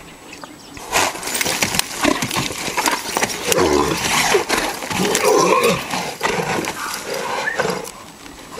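A horse bucking in a dirt pen, its hooves striking the ground again and again, with loud cries from about three and a half to six seconds in.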